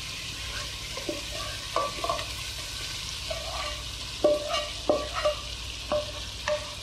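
Wooden spatula scraping and knocking against a non-stick frying pan as the fried chicken tikka pieces are pushed out into a pot, over a steady sizzle of the masala frying. About eight short knocks come at uneven intervals.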